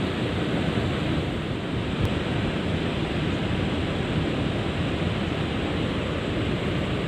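Steady, unbroken rush of water spilling over a river weir.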